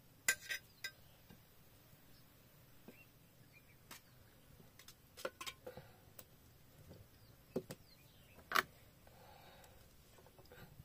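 Metal cutlery clinking against a metal cooking pot and a plate as pieces of boiled cassava are lifted out. The clinks are sharp and scattered, the loudest just after the start and about eight and a half seconds in.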